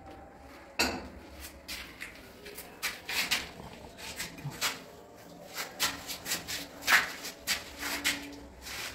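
Scattered light clicks and clinks of small metal fittings or tools being handled, at irregular intervals, with sharper knocks about a second in and near seven seconds.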